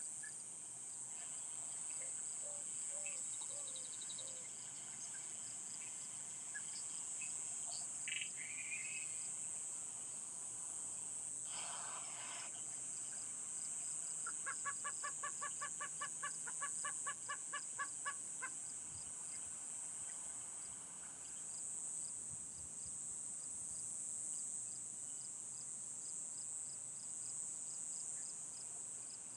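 Morning outdoor chorus: crickets and other insects keep up a steady high-pitched trill with a regular pulsing chirp, while birds call now and then. Midway a bird gives a run of about a dozen quick, evenly spaced notes.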